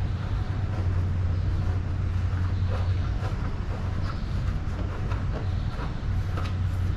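A steady low machine hum, with faint scattered light clicks and taps over it.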